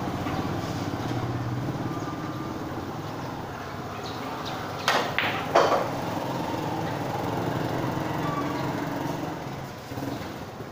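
A pool shot: two sharp clicks of billiard balls striking, a little under a second apart, the second the louder, over a steady low background rumble.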